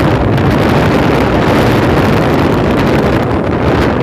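Steady rush of wind buffeting the microphone of a camera on a moving motorcycle, with the motorcycle's engine and road noise beneath it.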